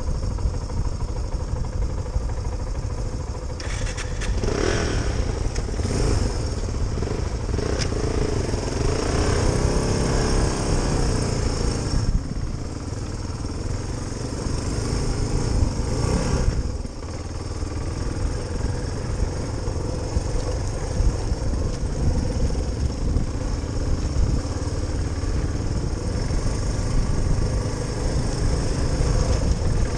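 Suzuki DR350SE trail bike's single-cylinder four-stroke engine running as the bike is ridden off road, the engine note rising and falling a few times in the first half, with a brief drop in level about halfway through.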